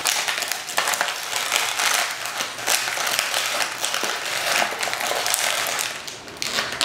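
Clear plastic packaging bag crinkling and rustling continuously as small doll figures are worked out of it by hand.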